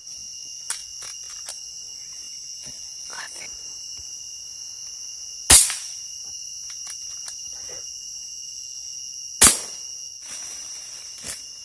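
Two sharp reports from a scoped rifle, about four seconds apart, over a steady high chirring of crickets and insects; a couple of faint clicks come between them.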